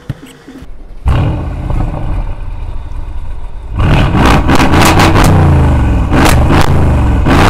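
Mercedes-AMG GLS 63's twin-turbo V8 firing up with a loud bark about a second in, settling briefly, then revved repeatedly from about four seconds in. The rising and falling revs are broken by sharp exhaust pops.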